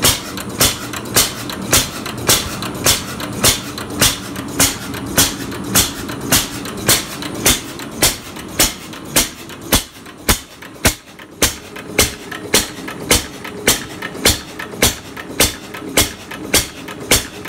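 1912 Baker Monitor 5 hp single-cylinder stationary gas engine running, with a sharp, regular beat a little under twice a second over a steady low mechanical hum.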